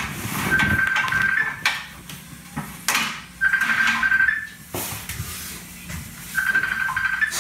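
Portable butane cassette stove being lit: the ignition knob is turned again and again, each try a short steady whine ending in a sharp snap of the igniter, repeated about three times.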